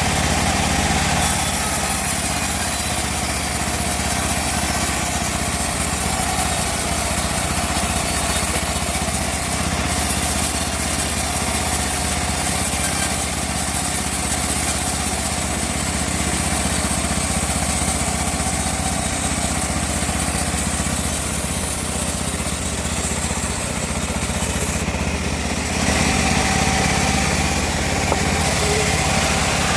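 Homemade bandsaw mill running steadily while sawing through teak wood. The sound changes character about a second in and again about four seconds before the end.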